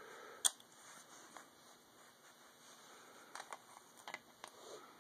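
Scattered light clicks and taps from handling a steel-frame pistol and its magazine, with one sharp click about half a second in and a quick cluster of smaller clicks near the end.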